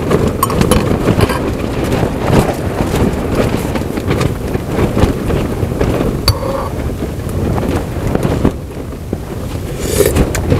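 Wind buffeting the microphone in a steady low rumble. A metal spoon clinks once against a glass with a brief ring about six seconds in.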